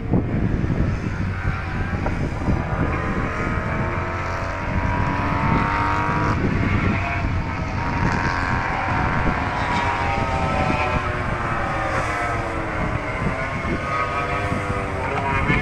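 MotoGP race bikes' 1000 cc four-cylinder engines running at speed around the circuit, several engine notes rising and falling as the bikes accelerate, change gear and brake. A gusty low rumble of wind on the microphone runs underneath.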